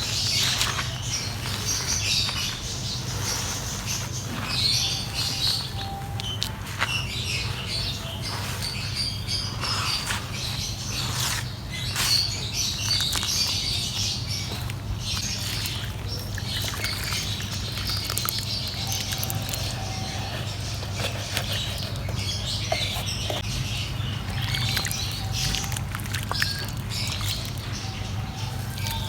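Dry mud being crumbled by hand onto a sheet: a dense, continuous crackling and crunching of breaking lumps and falling crumbs. A steady low hum runs underneath.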